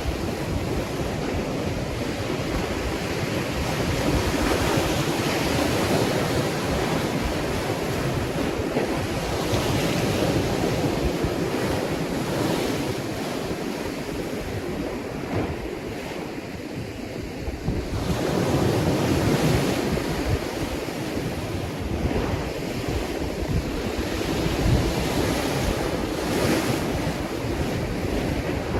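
Ocean waves breaking and washing on a shore, the surf swelling and easing every few seconds, with a lull about halfway through before a fresh wave comes in. Wind buffets the microphone throughout.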